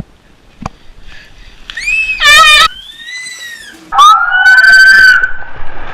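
Loud, high-pitched screams from a person, likely on a slide into slime. One wavering scream comes about two seconds in, and a second scream rises and then holds for more than a second from about four seconds in.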